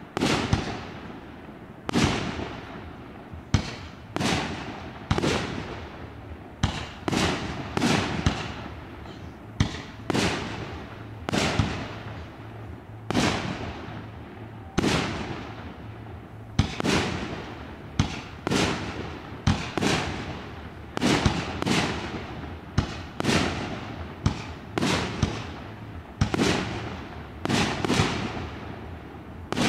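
Aerial firework shells bursting one after another, roughly one bang a second, each bang trailing off into a rolling echo.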